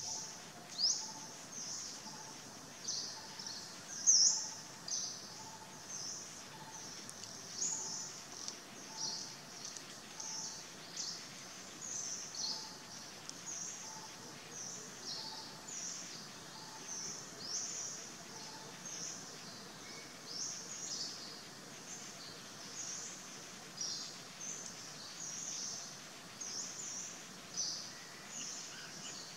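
Birds chirping in the surrounding foliage: many short, high chirps, about two a second. A fainter, lower call repeats about once a second until past the middle.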